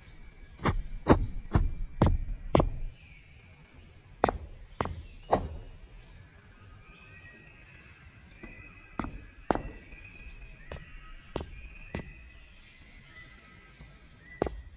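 Hammer blows on wood: a run of six quick strikes, three more a couple of seconds later, then scattered single blows.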